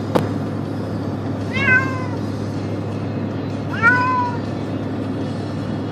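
Tortoiseshell cat meowing twice, each meow rising and then falling in pitch, about two seconds apart, over the car's steady low hum. A single sharp click right at the start.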